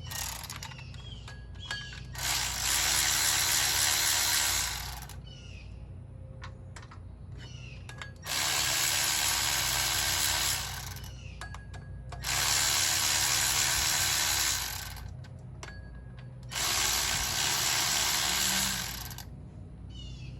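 A cordless power tool driver running in four separate spurts of about two and a half seconds each, backing out the four 10 mm bolts that hold the water pump pulley. There are small clicks and handling taps between the runs.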